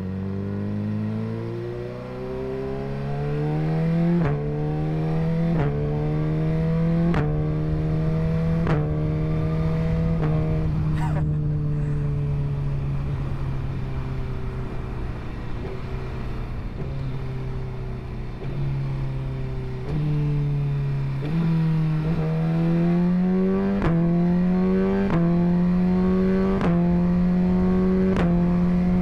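Suzuki GSX-R1000 inline-four engine accelerating through a run of quick upshifts, its note climbing and dropping back at each shift. About halfway through the engine eases off and its note falls slowly. A downshift about twenty seconds in makes the note jump, and the engine then pulls through several more upshifts.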